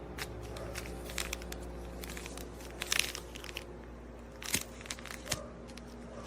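Packaging crinkling and crackling as it is handled, with sharper crackles about three seconds in and again near five seconds, over a steady low hum.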